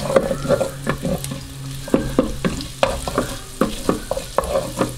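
A wooden spatula scraping and knocking irregularly against the inner pot of a Mito R5+ digital rice cooker, stirring chopped garlic as it sizzles in hot oil.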